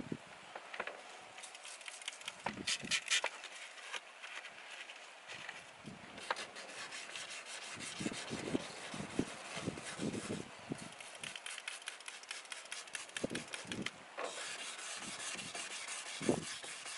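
Wet sandpaper rubbed by hand over a plastic taillight lens in quick repeated strokes: a soft rasping scrape. The lens is being sanded to take off its yellowed, oxidised surface.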